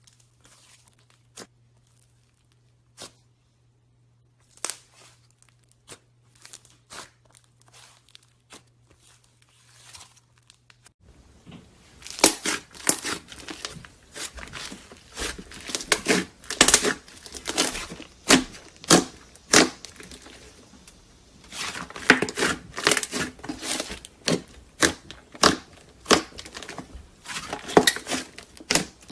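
Slime being worked by hand, making sticky crackles and pops. The crackles are sparse at first over a faint low hum, then come thick and louder from about eleven seconds in.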